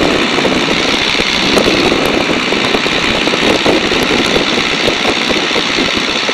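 de Havilland Tiger Moth biplane in flight: the steady drone of its inverted four-cylinder engine and propeller, mixed with wind rushing past the open cockpit.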